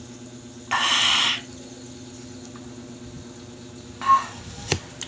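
Mukbang eating sounds: a loud, breathy mouth sound lasting under a second, about a second in. Near the end comes a short squealing laugh, then a sharp click of the metal spoon against the plastic tub. A steady low hum runs underneath.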